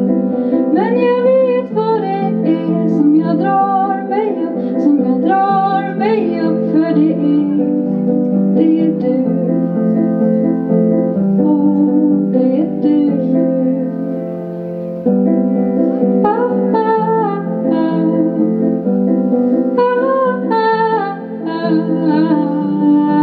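A woman singing live into a microphone over a sustained instrumental accompaniment of held chords.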